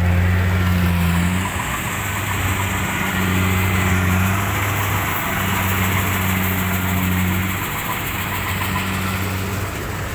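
Diesel engine of a Kubota rice combine harvester running steadily under load, a constant low hum over a broad mechanical noise.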